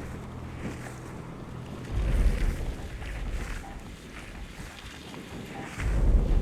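Wind buffeting the microphone, with low rumbling gusts about two seconds in and again near the end.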